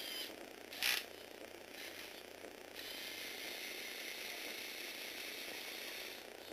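Small electric motor whirring through the plastic gears of a motorized Lego Technic flatbed truck's bed mechanism, stopping and starting, with one sharp click just before a second in.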